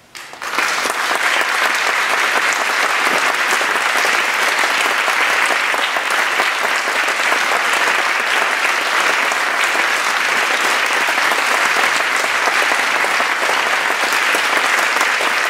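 Audience applauding, breaking out suddenly about half a second in and then holding steady.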